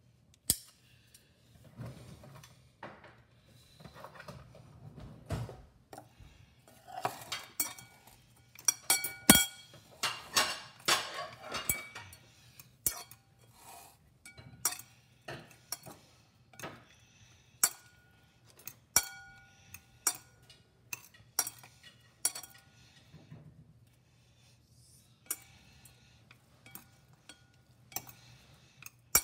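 A metal fork and wooden chopsticks tapping and clinking against a ceramic bowl while tossing and mixing instant ramen noodles. The taps are irregular and some leave a short ringing note from the bowl; they come thickest from about seven to twelve seconds in.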